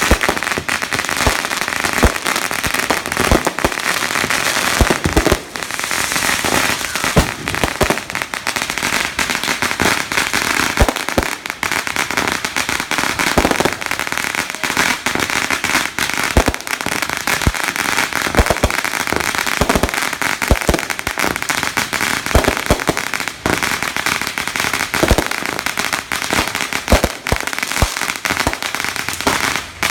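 Fireworks going off in a dense, continuous crackle of rapid pops, with scattered louder bangs throughout.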